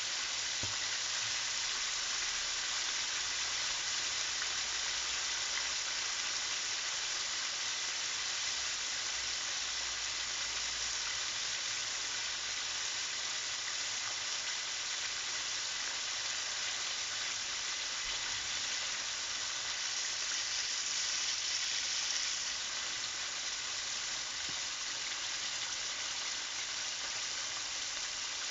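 Southern fried chicken pieces deep-frying in a pan of hot oil: a steady, even sizzle of bubbling oil.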